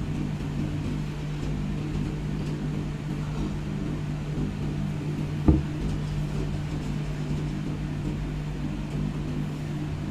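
Steady low mechanical hum with a single thump about five and a half seconds in.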